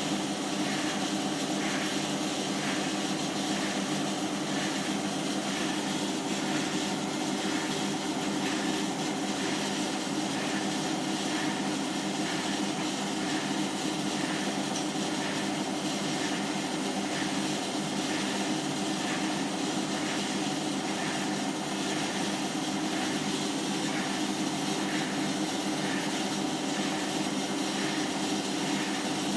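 Hotpoint washing machine on its spin cycle: a steady motor-and-drum hum with a faint squeak-scrape repeating a little more than once a second. The squeaking and scraping is a fault that the owner finds only on the 30° spin.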